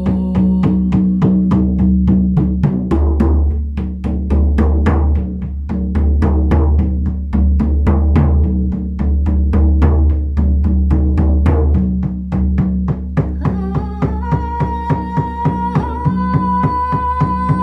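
Shamanic frame drum beaten steadily with a beater, about three deep, booming strokes a second. Near the end, a woman's voice comes in over the drum with long held sung notes, stepping up slightly in pitch.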